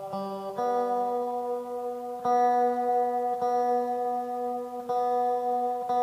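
1982 Tokai Silver Star electric guitar, the same plucked notes struck about five times and left to ring at a steady pitch, with the player's hand on the tuning pegs as he checks its tuning.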